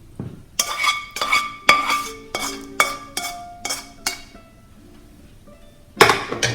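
A cooking utensil clinking and scraping against the pan and serving bowl in a quick series of ringing strikes for about three and a half seconds, then one louder clank near the end. Soft background music underneath.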